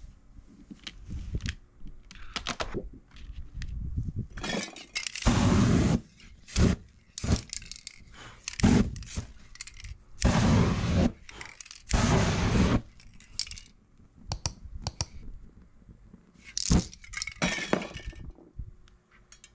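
Short hisses of aerosol spray paint cans, each under a second, with scattered clicks and clinks of cans being handled.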